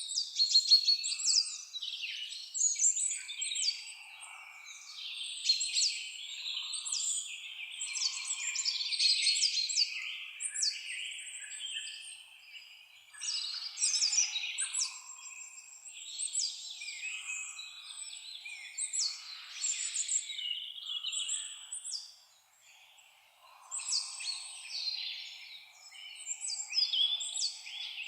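Several songbirds singing and chirping over each other in quick, overlapping phrases, with short gaps.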